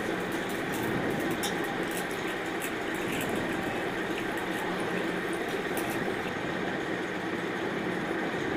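Pot of puti fish curry simmering over the stove fire: a steady rush with light pops and ticks during the first six seconds or so.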